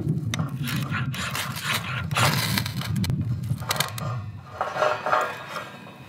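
Knife blade shaving thin curls off a wooden stick to make a feather stick: a series of irregular scraping strokes along the wood.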